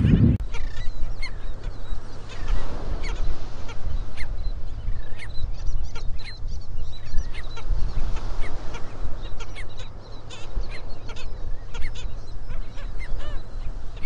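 Black skimmers calling: many short, honking barks from several birds, overlapping and scattered throughout, over a steady low rumble.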